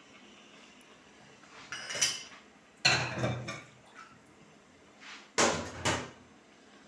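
Metal spoon stirring thick frying frik in a pot, knocking and scraping against the pot several times: a clatter about two seconds in, a louder one at three seconds, and two quick knocks near the end.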